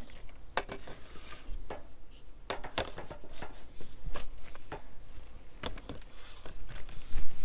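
Handling noise as a PVC mounting pole and a cordless driver are worked up against a roof eave: scattered light clicks and knocks over clothing rustle, with a louder cluster of knocks near the end.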